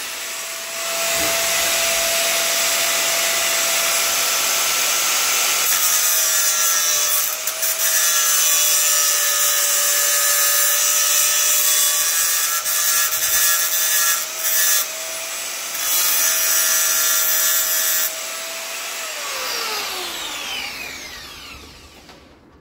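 Handheld power tool working on a pushchair's metal frame. It runs steadily with a high whine and a loud hiss, dipping briefly a few times. Near the end it is switched off and winds down with a falling whine.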